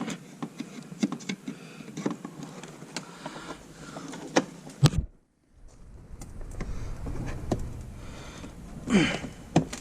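Irregular clicks and knocks of plastic bumper trim and clips being pried and pulled out by hand; after a short break about five seconds in, a steadier low hum with scattered knocks.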